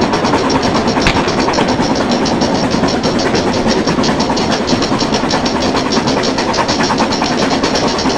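Ride-on miniature railway locomotive running along its track, heard from on board: a steady rumble of running wheels and track with a rapid, even beat, about eight pulses a second.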